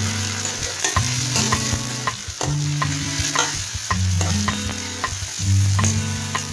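Sliced onions with garlic and ginger paste sizzling in hot oil in a wok, a spatula stirring them and scraping the pan with repeated short clicks. Low steady tones that change pitch every second or so run underneath.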